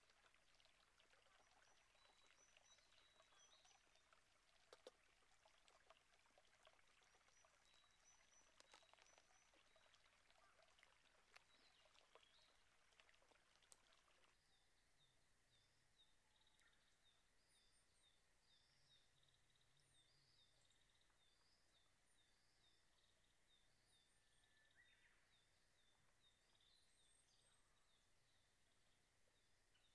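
Faint outdoor ambience: a soft steady rush with scattered small clicks for about the first half, which drops away suddenly partway through. After that, faint birdsong, a bird repeating short high notes over and over with a few higher chirps.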